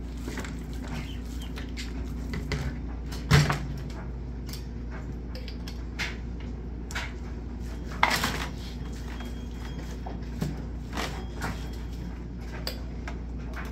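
Kitchen handling sounds from rubbing marinade into pork ribs in aluminium foil pans: a spoon scraping and tapping against a jar and the foil pans, with scattered small clicks and two sharper knocks about three and eight seconds in, over a steady low hum.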